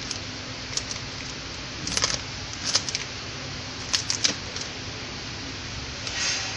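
Clear plastic packaging film crinkling and crackling in the hands, with small clicks against the packing machine's metal rollers as the film is threaded through its date printer. Short clusters of sharp crackles and clicks come about 2, 3 and 4 seconds in, with a softer rustle near the end, over a steady background hiss.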